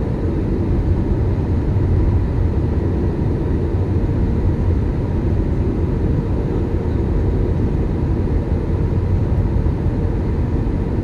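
Airbus A321 cabin noise at a window seat over the wing on final approach: the steady low rumble of the engines and rushing airflow, even in level throughout.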